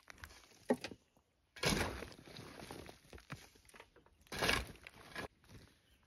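Shovel scooping loose bark and sawdust and tipping it into a wheelbarrow: two loud crunching scrapes, about a second and a half in and again at about four and a half seconds, with a shorter one near the start. Footsteps crunch over loose dry bark near the end.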